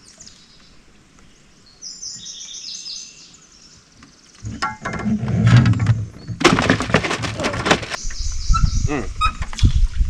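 A bird chirps briefly, then a run of knocks and clatter from handling in the boat, loudest a couple of seconds after the middle, with a low rumble toward the end.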